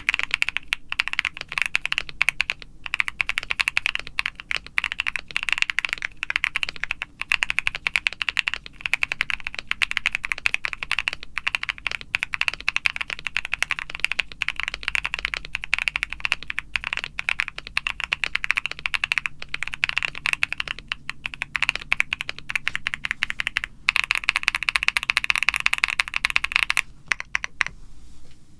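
Continuous typing on an aluminium Luminkey75 mechanical keyboard with lubed Akko Creamy Lavender Pro tactile switches, a polycarbonate plate, foam dampening and PBT keycaps. Keystrokes come in a dense, unbroken run, busiest near the end, and stop shortly before it ends.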